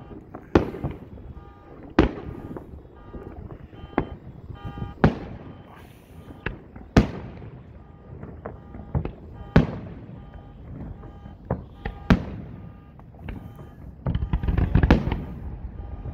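Aerial fireworks shells bursting overhead with sharp bangs every second or two, each echoing away. Near the end the bursts come thicker in a dense crackling run.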